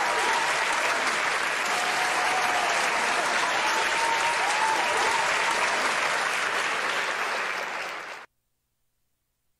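Applause, steady for about seven seconds, then thinning and cutting off abruptly near the end.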